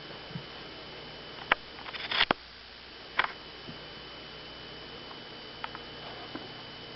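A cat scrabbling at a feather toy on a cat tree: a few sharp knocks and a short rustling flurry about two seconds in, then scattered light taps and ticks.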